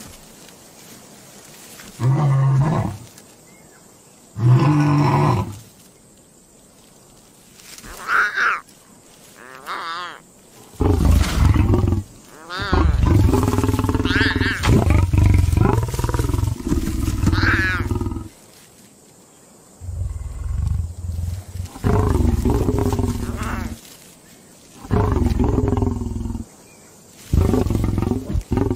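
Male lion growling and grunting at his cubs in a series of low calls: short ones at first, a long one of several seconds in the middle, then more short ones, with a few higher-pitched cries mixed in. The growling is gruff but not hostile, an approving greeting of the cubs.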